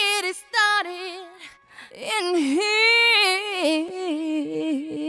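A teenage girl's high voice singing long, wavering notes, in short phrases at first and then one long held note.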